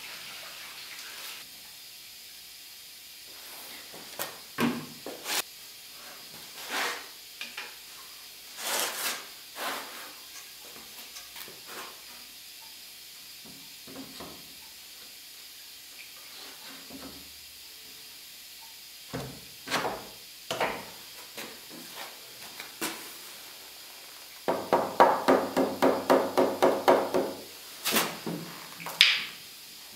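Mallet striking the foot of a solid softwood panel frame to knock it into place: scattered single knocks, then a fast even run of about a dozen blows, four or five a second, near the end.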